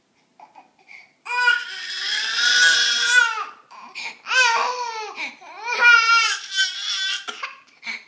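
A baby crying in anger: after a quiet first second, one long high wail, then several shorter cries with breaths between them.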